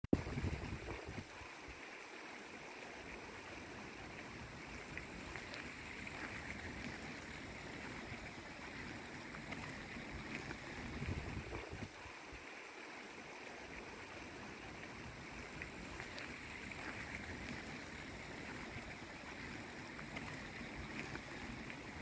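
Small woodland stream running over rocks: a steady, even rushing trickle, with a couple of brief low rumbles near the start and about eleven seconds in.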